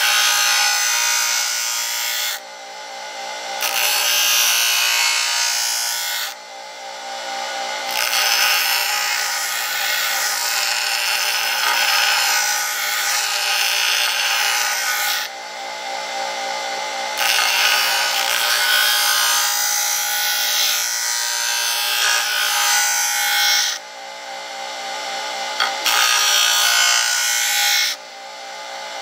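A DeWalt bench grinder's motor runs with a steady hum while the spine of a high-carbon-steel Mora Companion knife is pressed to the stone wheel in five passes, each a harsh hiss of steel being ground away, broken by short pauses where the knife is lifted off. The rounded spine is being ground to a flat, sharp 90-degree edge.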